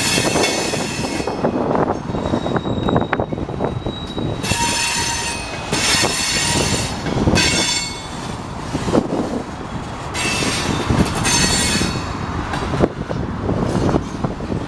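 Freight train cars rolling slowly past: steel wheels on the rails squealing in about six high-pitched bursts over a constant low rumble, with a few sharp clanks from the wheels and couplers.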